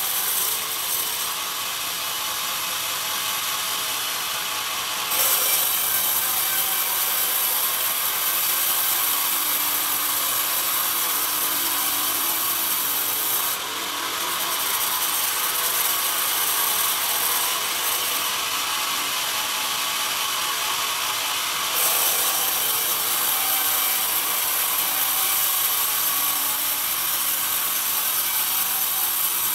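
Band saw running and cutting a pine cant fed on a log carriage: a steady, hissing sawing sound. It gets louder and brighter about five seconds in and again about two-thirds of the way through, with a brief drop between as a pass ends.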